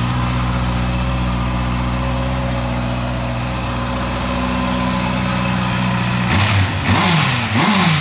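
Honda CB650R's inline-four engine idling steadily, then revved in two quick blips near the end.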